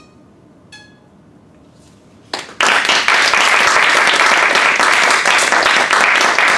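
A couple of last plucked zither strings ring faintly and die away. About two and a half seconds in, a small audience starts applauding, loud and sustained.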